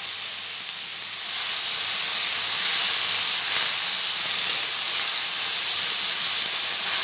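Diced raw potatoes sizzling steadily in hot oil in a steel kadai as they are stirred, growing a little louder about a second in.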